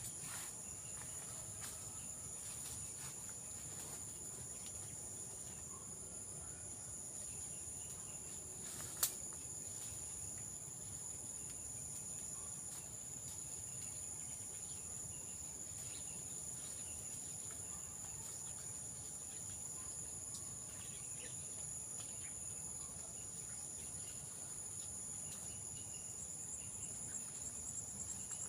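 Steady high-pitched chorus of insects, holding two continuous high tones, with a single sharp click about nine seconds in.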